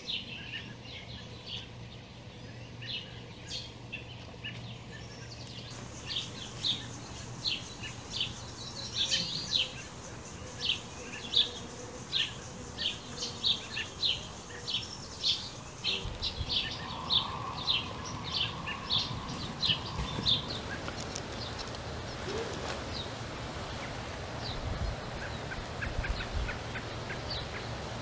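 Birds chirping: many short, sharp, high notes repeated a few times a second, thinning out in the last quarter, with one lower, longer call in the middle.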